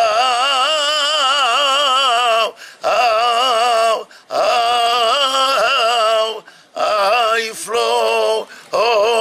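Unaccompanied man singing a flamenco saeta in long, heavily ornamented phrases with a wavering vibrato, broken by four short pauses.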